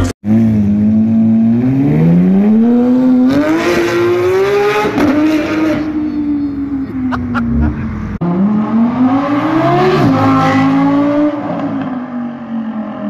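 Porsche 911 GT3 RS's naturally aspirated flat-six accelerating hard, its pitch climbing and then dropping at an upshift about five seconds in. After a cut near eight seconds, an Audi R8's engine revs up steeply and falls back twice.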